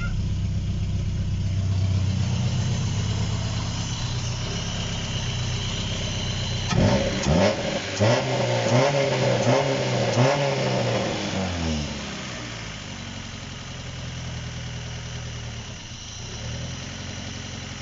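Freshly rebuilt Opel Corsa B GSi 1.6 16-valve four-cylinder engine running at a fast warm-up idle on its first start, loud through a partial exhaust. About seven seconds in it is revved several times in quick blips, then settles back to a quieter, steady idle.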